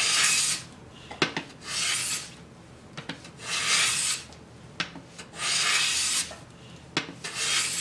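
Stanley bench plane with a freshly honed iron taking shavings from a board: a hissing stroke roughly every two seconds, about five in all, with light knocks between strokes as the plane is drawn back and set down.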